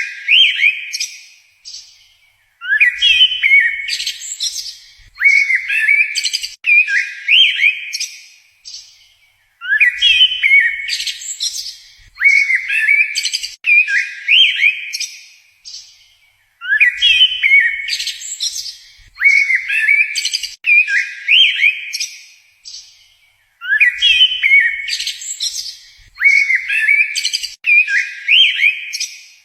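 A bird chirping loudly in quick bursts of short, sliding notes; the same sequence of calls repeats about every seven seconds.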